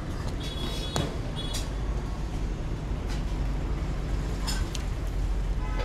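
Steady low rumble of road traffic, with a few sharp clicks and brief high-pitched chirps on top.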